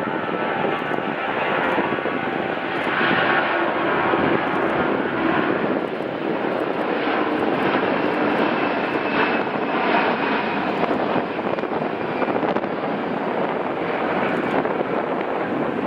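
Jet engine noise of an Airbus A340-300 airliner landing, its four CFM56 engines giving a steady, loud rushing sound with a faint whine. It swells slightly a few seconds in and again about ten seconds in.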